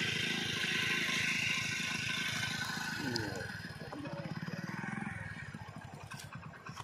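A motorcycle engine running at low speed with an even, rapid beat; it gets somewhat quieter in the second half.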